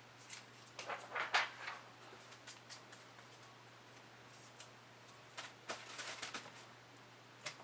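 Paper and packing material rustling and crinkling in short bursts as a cardboard case is unpacked by hand, about a second in and again around six seconds, with a click near the end.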